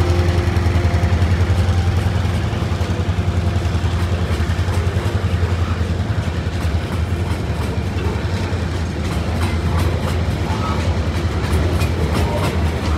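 Coal hopper wagons of a freight train rolling past on the rails: a steady heavy rumble, with the wheels clicking over the rail joints more distinctly in the second half.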